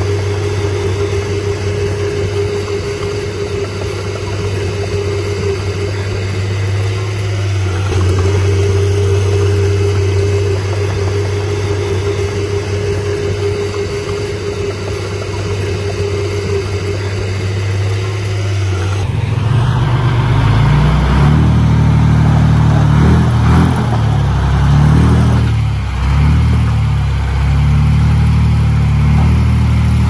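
Heavy diesel engine of a bulldozer or dump truck running steadily, then about two-thirds of the way in it gets louder and its pitch rises and falls as the machine works under load.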